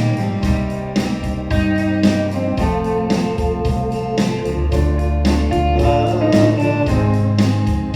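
Instrumental passage of a folk-rock song: guitar lines over bass and a steady drum beat, played back through hi-fi loudspeakers.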